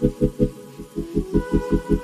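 Background music: an even, pulsing bass beat at about five beats a second under held chord tones, which change about a second and a half in.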